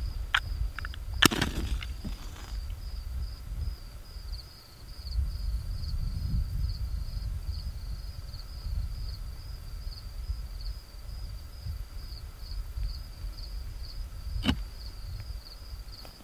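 Night insects chirping steadily in a high, evenly pulsed rhythm of a few pulses a second, over a low uneven rumble on the microphone. A sharp knock comes about a second in and another near the end.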